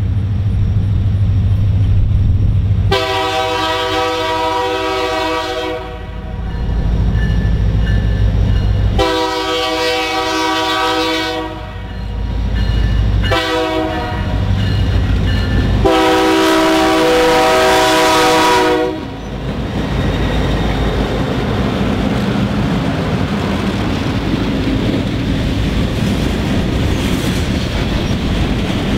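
BNSF EMD SD40-2 diesel locomotive approaching with its engine running, then sounding its multi-chime horn in the grade-crossing pattern: long, long, short, long. The locomotive then passes and the freight cars roll by with a steady rumble of wheels on rail.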